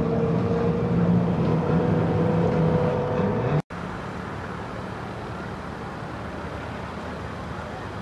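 A steady motor hum with an unchanging pitch, which cuts off abruptly about three and a half seconds in and gives way to a quieter, even rushing noise.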